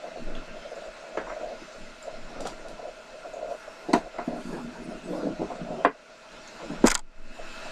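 Objects being handled and set down on a table: scattered knocks and clatters, the sharpest one near the end, over a faint steady hum.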